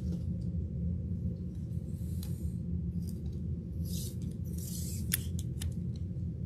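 Trading cards being handled: a few short, soft swishes as cards slide across one another, and some light clicks about five seconds in, over a steady low hum.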